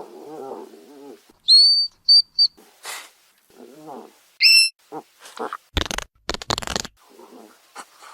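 Hedgehog vocalising: low pitched grunts, several short high squeaks, and loud noisy puffing bursts.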